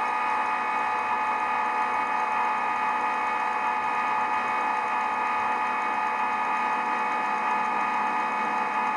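Steady machine hum with several held tones and no change in pitch: the simulated spindle-running sound of SwanSoft CNC milling software while the virtual tool feeds in a straight line.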